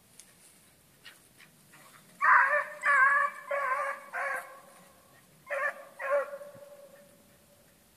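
Hunting hound baying: six drawn-out bays, four in quick succession and then two more after a short pause, the voice a hound gives while trailing a rabbit.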